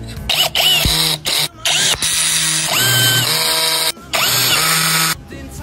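Electric drill-type power tool, run in several short bursts, each spinning up in pitch and then holding a steady whine; the longest burst lasts about a second.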